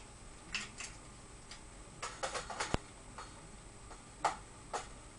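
Scattered clicks and light knocks of a pair of AK-47 magazines joined by plastic magazine clamps being handled, with a quick run of clicks around the middle.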